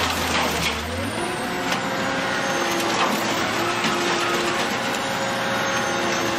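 Industrial car shredder tearing a crushed car body apart: a steady machine drone under the crunching and ripping of sheet metal, with sharp cracks now and then.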